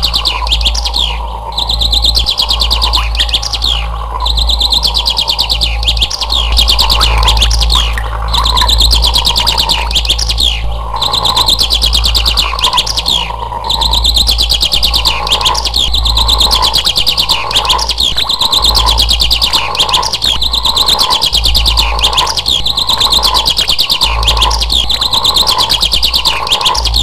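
Birds chirping in quick, high trills that repeat every second or two. Underneath runs a lower call pulsing about once a second and a steady low hum.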